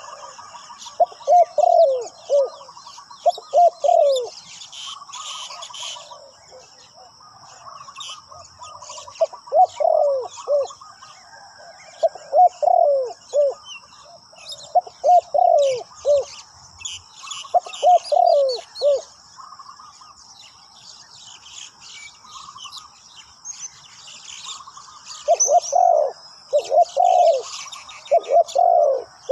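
Spotted dove cooing: short groups of falling coos repeated every few seconds, with a longer pause past the middle. Small birds chirp and a steady high-pitched drone runs underneath.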